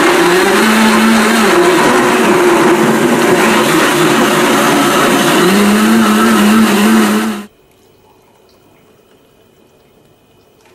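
Blendtec blender running on high, blending yogurt and whole fresh fruit into a smoothie, its motor pitch wavering as it runs. It cuts off suddenly about seven and a half seconds in, leaving only a faint steady background.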